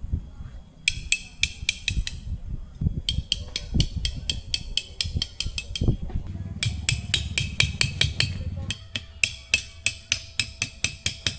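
Rapid hammer strikes on metal, each ringing sharply, in four runs of one to two seconds with short pauses between.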